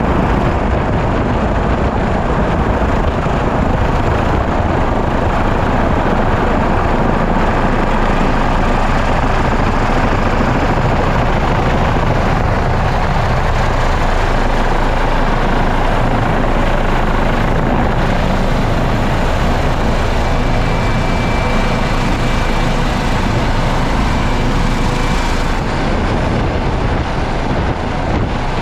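Helicopter rotor and engine noise heard from inside the cabin during the descent and landing, a loud, dense, steady rush. A faint thin high whine joins it for a few seconds past the middle.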